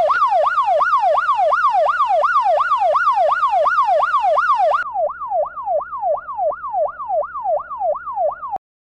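Police car siren in a fast yelp, its pitch rising and falling about two and a half times a second, cutting off suddenly near the end.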